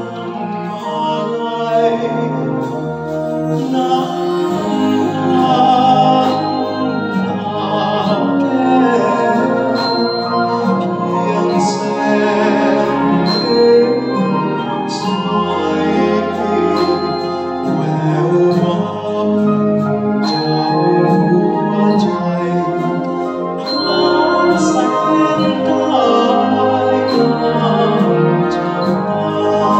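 Symphonic wind band playing live, sustained brass and woodwind chords with percussion, accompanying singers who sing through microphones.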